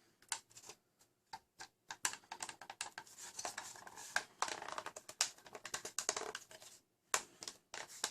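Small clicks and rattles of hard plastic parts and metal pins being handled as assembly pins are fitted into a plastic toy blaster's shell. The clicks are sparse at first, come thick and fast from about two seconds in, and stop briefly near the end.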